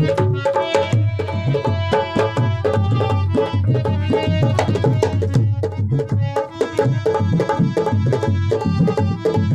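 Tabla playing a fast, steady rhythm of strokes over held harmonium notes, as Indian folk-style instrumental music.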